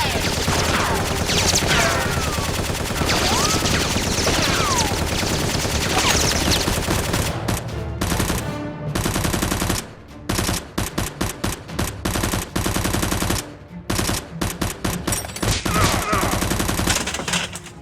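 Rapid automatic gunfire sound effects. The first half is dense and continuous, with a few short falling whistles. Around the middle it breaks into quick separate bursts of shots.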